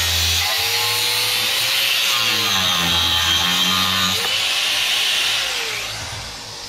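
Angle grinder with a cut-off disc cutting through an aluminium motorcycle fork tube, its motor note dipping and recovering as the disc bites. Near the end the cut stops and the grinder spins down.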